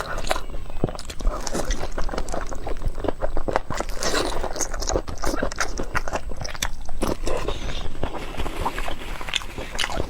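A person eating into a close microphone: chewing and biting, with many short mouth clicks throughout.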